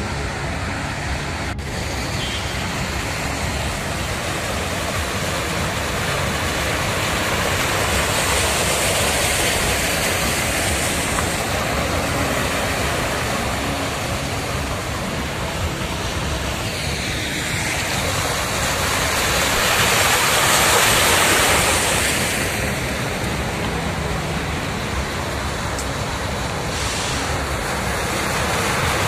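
Vehicles driving through a flooded street, their tyres pushing and splashing through the water, heard as a steady rushing wash of noise that swells louder twice, around nine and twenty seconds in.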